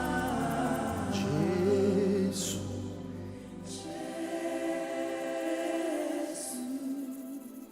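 Live gospel worship music: a choir singing slow, held notes over sustained accompaniment, with the low end dropping away partway through and the music growing softer near the end.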